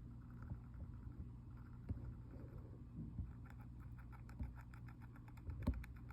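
Hamster grinding its teeth: a run of rapid faint clicks, about six a second, starting about three seconds in, over a steady low hum. A few soft knocks, the loudest near the end.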